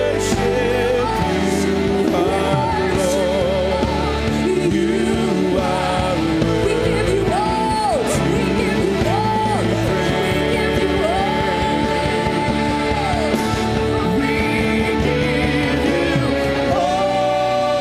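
Live worship music: a singer holding long notes with vibrato over a full band, with cymbal crashes in the first few seconds.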